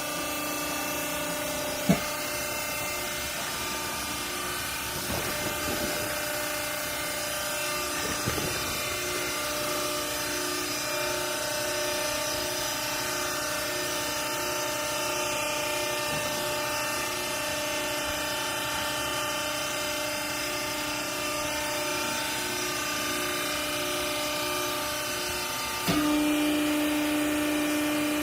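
Hydraulic used-clothes baler's power unit running with a steady hum made of several constant tones. A sharp click comes about two seconds in, and near the end the hum steps up louder with a stronger low tone.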